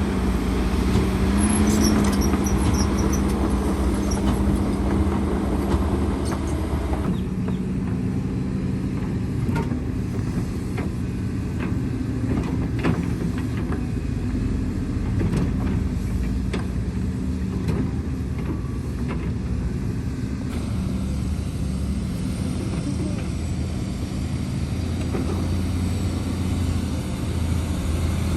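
Diesel engines of heavy earthmoving machinery running steadily, with scattered short knocks and clatter and a brief high squeal about two seconds in.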